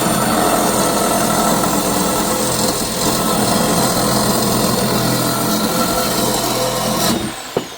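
Reciprocating saw cutting through steel shelving, running steadily, then cutting off about seven seconds in as the cut finishes. The motor's whine falls as it spins down, and there is a short clank just after.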